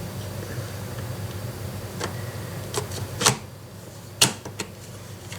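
Sharp clicks and knocks of an airsoft AEG motor being handled and fitted into the gun's pistol grip, five or so, the loudest about three and four seconds in.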